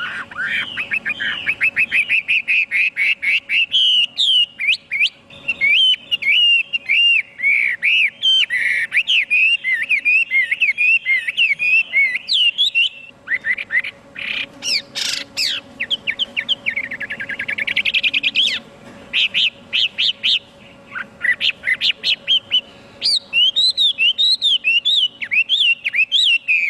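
Chinese hwamei (họa mi) singing a loud, varied song of rapid whistled notes and phrases, with a rolling trill about two-thirds of the way through.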